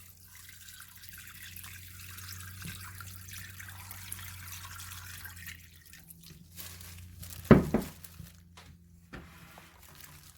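Water being poured in, a running, splashing hiss for about six seconds, over a steady low hum. About seven and a half seconds in comes a single loud knock.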